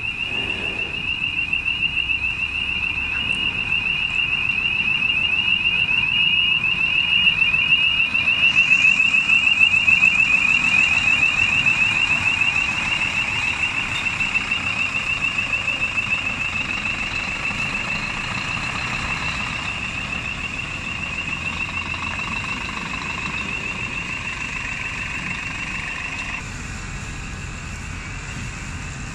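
High-pitched warning alarm on a Scania G440 heavy-haul tractor unit and lowbed trailer, warbling rapidly and without a break as the rig moves. It grows louder and then fades, and cuts off suddenly about 26 seconds in. The truck's diesel engine runs low underneath.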